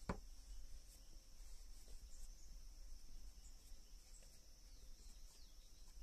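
Faint, steady, high-pitched drone of insects, with a single sharp click just after the start.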